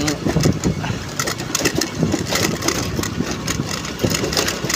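Honda Navi scooter's small single-cylinder engine running as it rides along, mixed with a dense, irregular crackle of knocks and rushing noise.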